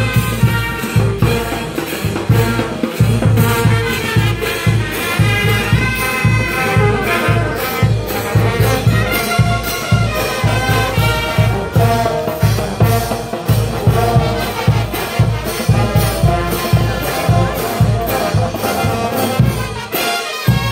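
Live brass band playing: trumpets and saxophones carry the tune over sousaphones, with a steady beat from a bass drum and crash cymbals.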